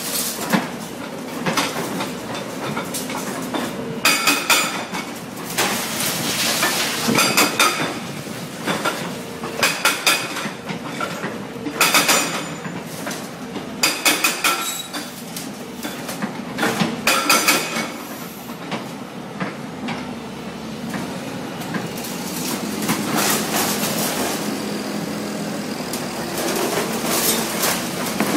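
CMB CM 650 hydraulic breaker on an excavator hammering concrete rubble in short bursts of rapid, ringing metallic blows, a burst every two to three seconds, over the Hitachi excavator's engine running. About two-thirds of the way through the hammering stops and only the engine runs steadily.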